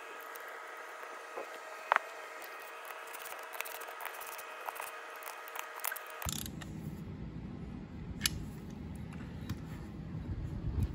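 Small metallic clicks and scrapes of carriage bolts being fitted through the halves of a two-piece steel wheel rim, with one sharp click about two seconds in. About six seconds in, a low steady background noise starts abruptly under further occasional clicks.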